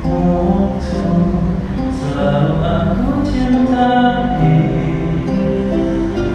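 Karaoke: a man singing a Malay-language pop song over a backing track.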